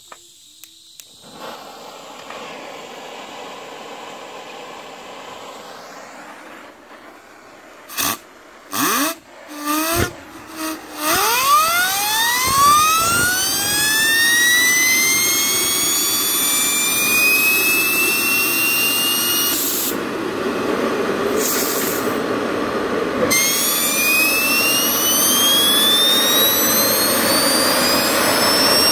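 Homemade RC turbofan engine starting on propane gas: a rising hiss as it is spun up, several loud bursts about eight to eleven seconds in as it lights, then a whine that climbs over several seconds as the turbine spools up and settles into a steady high whine with a rush of exhaust. Near the end the pitch climbs again.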